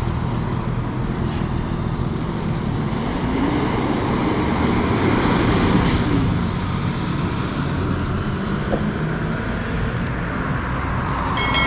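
A truck engine idling steadily while road traffic passes; one passing vehicle swells and fades around the middle.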